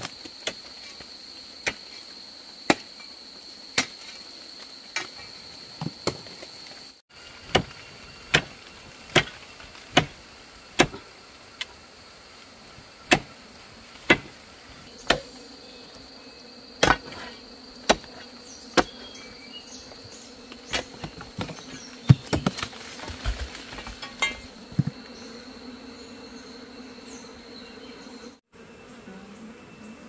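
Sharp knocks, about one a second, with a quicker cluster about three-quarters of the way through, over a steady high-pitched drone of insects. A lower buzz joins about halfway through.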